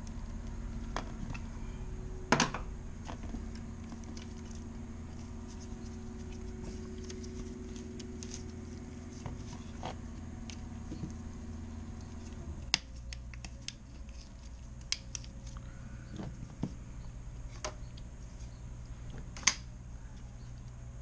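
Scattered clicks, scrapes and rattles of hands working a wall-mounted thermostat and its wiring, with two sharp louder clicks, one a couple of seconds in and one near the end, as the thermostat body comes off the wall. Underneath runs a steady low hum that changes and drops a little past the middle.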